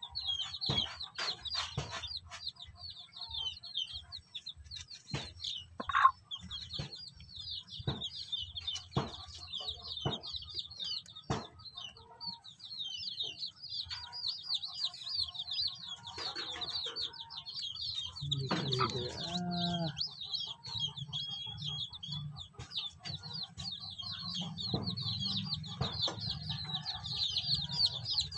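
Day-old native chicks peeping high and without pause, while the mother hen clucks low, with one fuller call from her a little past the middle. Scattered sharp taps sound in among the peeping.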